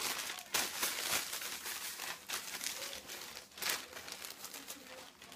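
Gallon zip-top plastic bag crinkling and rustling in irregular bursts as hands work biscuit pieces around in the cinnamon sugar inside it, loudest in the first second.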